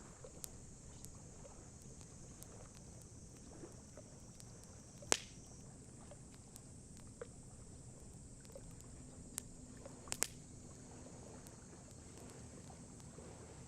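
Wood campfire crackling: scattered sharp pops over a steady low background noise, the loudest pop about five seconds in and a quick pair of pops near ten seconds.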